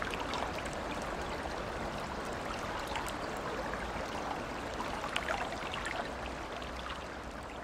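Shallow river water running over a riffle: a steady rush of current with scattered small splashes and trickles.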